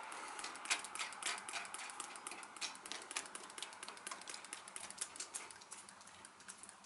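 Hand trigger spray bottle squeezed over and over, spraying heat-absorbing gel onto sheet metal: a quick run of short spritzes and trigger clicks.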